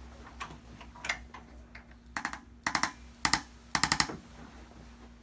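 A few scattered sharp clicks, then four quick clusters of rapid clicks close together in the second half, over a steady low hum.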